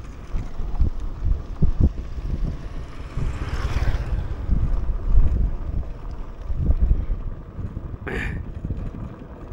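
Wind buffeting the microphone and road rumble from a moving motorbike, in uneven gusts, with a short burst of hiss about eight seconds in.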